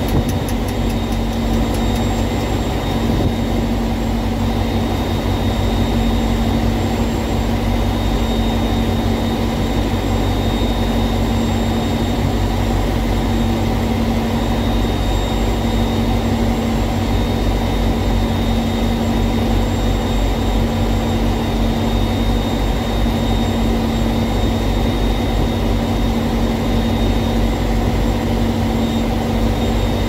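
A large engine running steadily at constant speed: an even, unbroken drone with a steady hum over it.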